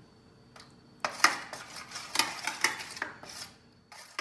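A spoon scraping and clinking against a pan and dish while sauce is spooned into the base of a lasagna dish. The run of scrapes and knocks starts about a second in, the sharpest one coming just after.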